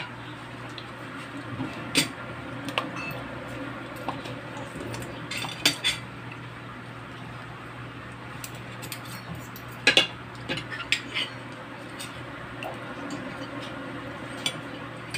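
Spoon and fork clinking and scraping on a plate while eating, in scattered sharp clinks with a quick cluster about ten seconds in, over a low steady hum.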